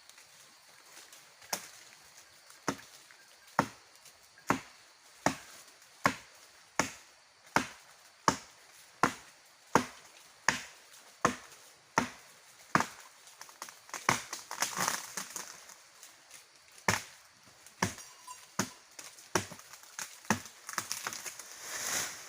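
A blade chopping into the branches of a fodder tree, about twenty sharp strokes at a little over one a second, lopping leafy fodder for goats. Twice a longer rustle of leaves breaks in, once past the middle and again near the end.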